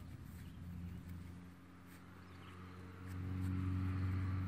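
A low, steady engine hum that grows louder about three seconds in.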